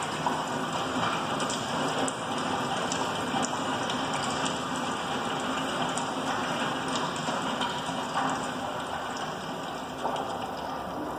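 Recorded sound of steady rain with scattered drop ticks, played as the soundtrack of a rain-themed classical Chinese dance.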